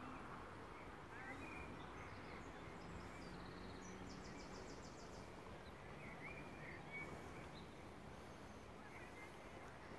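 Faint outdoor background noise with scattered short bird chirps and a brief rapid high trill about four seconds in.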